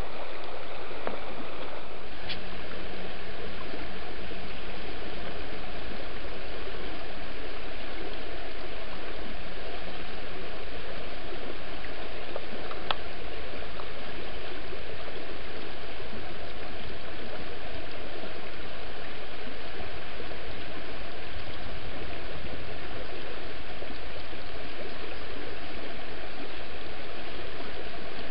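Shallow river flowing over a stony riffle: a steady, even rush of running water.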